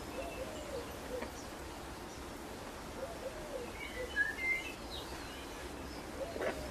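A pigeon cooing in short low phrases, one about every three seconds, with a small bird chirping briefly in the middle.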